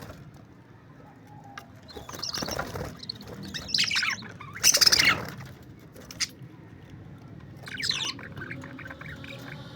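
Parakeets calling: loud bursts of chirping and squawking about two, four and five seconds in, another near eight seconds, then softer rapid chatter.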